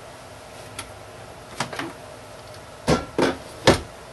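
Scattered short, sharp knocks and clicks of hard objects: a faint one near the start, two in the middle, and three louder ones in quick succession near the end.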